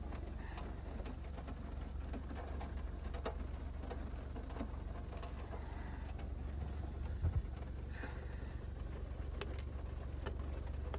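Rain falling on a SsangYong Torres SUV, heard from inside the cabin: an even hiss with scattered sharp drop ticks over a steady low hum.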